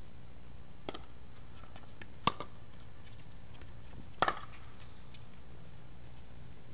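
Pickleball paddles hitting the plastic ball in a rally: sharp pocks, a faint one about a second in, a loud one after about two seconds, and a loud quick double pock about four seconds in.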